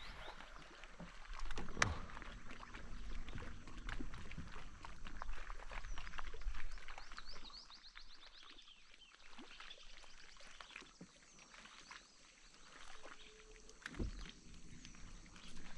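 Open-air lake ambience: small birds chirping and twittering, with scattered small clicks and knocks in the boat. The sharpest knocks come about two seconds in and again near the end.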